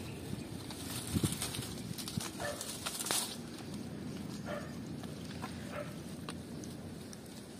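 Close rustling of vine leaves and dry grass, with a couple of sharp knocks about one and three seconds in as the plant is handled. A few short animal calls, each falling in pitch, sound faintly in the background about two seconds apart.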